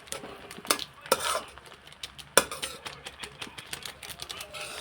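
A metal spoon or spatula stirring fried rice in a pan, scraping and clinking against the metal, with a few sharper knocks, the loudest about two and a half seconds in.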